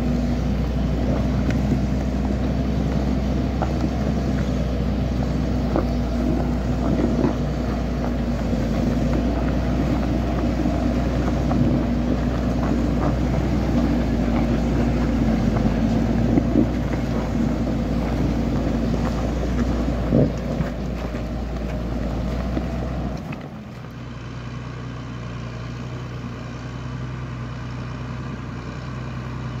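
Tractor engine running steadily under load, with scattered knocks and rattles as the log-laden forestry trailer rolls over the rough, rutted track. About 23 seconds in the sound drops to a quieter, steadier engine hum.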